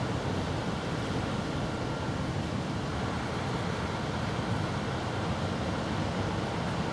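Steady background noise: an even hiss with a low rumble underneath, with no distinct events.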